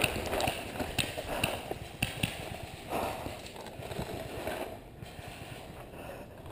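Scattered sharp pops of paintball markers firing, some seconds apart, busier in the first few seconds.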